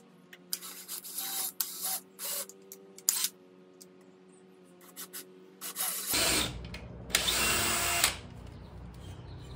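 Cordless drill with a 3/16-inch bit drilling pilot holes for a wall bracket: several short bursts of the motor, then two longer runs near the end.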